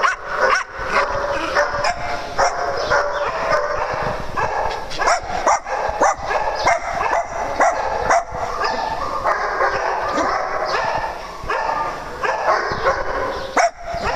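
Small dogs, among them a Jack Russell terrier, barking and yipping in many sharp barks in quick succession, often overlapping.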